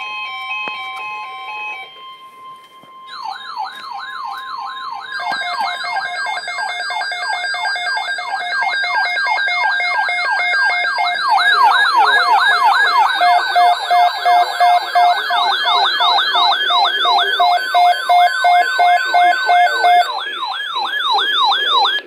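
Weather alert radios sounding their alarms together for a severe thunderstorm watch. A steady high tone with repeating beeps comes first; from about three seconds in, fast warbling siren-style alarms pile up in layers, a rapid beeping joins midway, and most cut off together about two seconds before the end, leaving one warble.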